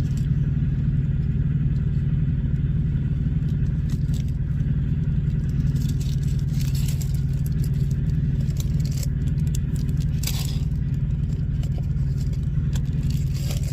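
Steady low rumble of an idling engine throughout, with a few brief crackles and rustles of packaging being handled, the loudest about ten seconds in.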